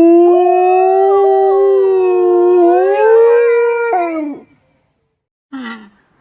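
A dog howling: one long, loud howl that rises in pitch about three seconds in and breaks off with a downward slide a little after four seconds, followed by a short falling howl near the end.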